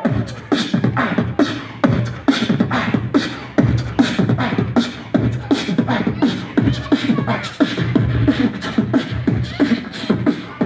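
Beatboxing amplified through a PA: a steady beat of sharp vocal percussion hits, about three to four a second, over a low bass line.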